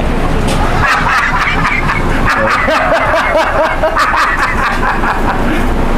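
A man laughing loudly in a long run of short bursts for several seconds, over a steady low background rumble.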